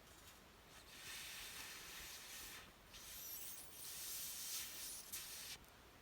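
Campfire burning, its wood hissing in faint surges that swell and fade every second or two.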